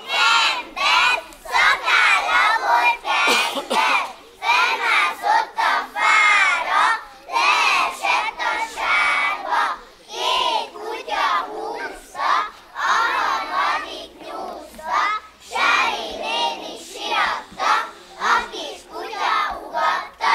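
A group of young children's voices in unison, loudly singing-chanting a rhyme in short phrases with brief breaks between them.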